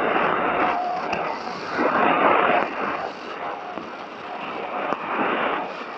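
Weak shortwave signal on 4750 kHz heard through the XHDATA D-608WB's speaker: mostly hiss and static that swells and fades every second or so. A faint steady whistle sits under the noise and stops about a second in.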